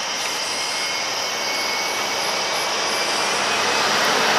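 A car driving past on the road through the tunnel: steady engine and tyre noise that grows louder toward the end.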